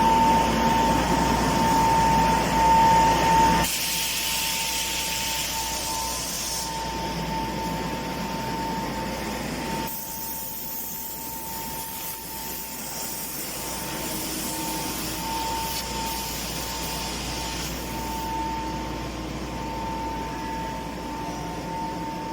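Factory machinery of an EPS 3D wire-mesh panel production line running: a steady whine over mechanical hiss. The mix changes abruptly about four and ten seconds in.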